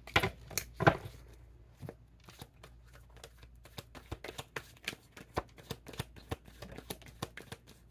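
A deck of tarot cards being shuffled and handled: a run of irregular soft clicks and taps, with two louder taps in the first second.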